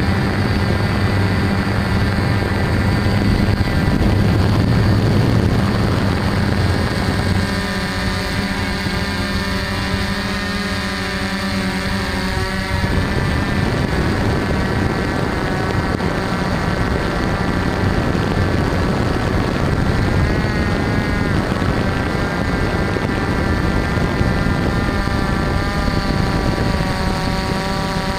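DJI F550 hexacopter's six brushless motors and propellers droning in flight, heard through the camera mounted on the craft, with their pitch drifting up and down as the throttle changes.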